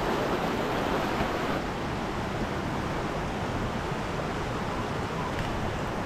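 Small rocky mountain stream rushing steadily over stones and through a shallow riffle.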